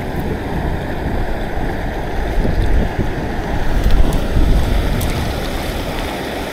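Steady rushing of flowing stream water mixed with wind buffeting the microphone, a deep uneven rumble that swells a little about four seconds in.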